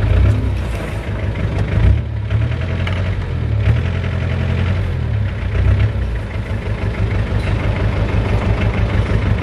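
Off-road vehicle's engine running at low revs, a continuous uneven low rumble.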